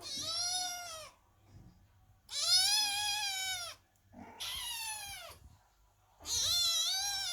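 Kittens meowing loudly: four long, high meows, each rising and then falling in pitch, with short pauses between them.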